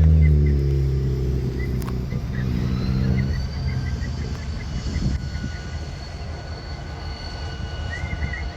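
Diesel-electric locomotives running past, their engine loud at first and fading after about three seconds, while a high steady whine rises and then holds.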